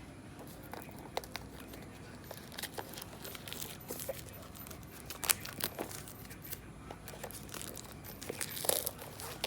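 Packaging being handled and opened: irregular crinkling and crackling of wrapping, with scattered sharp clicks, the loudest about five seconds in.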